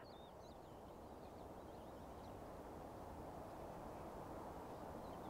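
Faint, steady rumble of a distant Boeing 777F's jet engines on approach, growing slowly louder, with small birds chirping over it.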